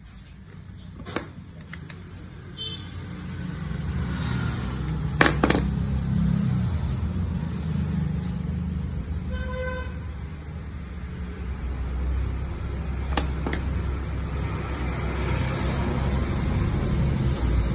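Low rumble of passing road traffic, with a short horn toot about ten seconds in. A few small sharp clicks of metal parts sound as a screwdriver works on a fishing reel.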